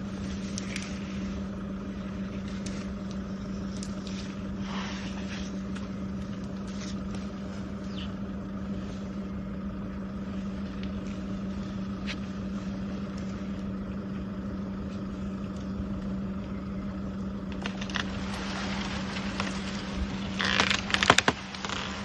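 A steady low mechanical hum, like an idling engine, with scattered faint crackles; about twenty seconds in comes a louder burst of rustling and crunching.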